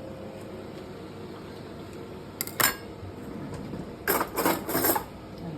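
Cutlery knocking against plates and dishes: one clink about halfway through, then a quick run of clinks and scrapes near the end.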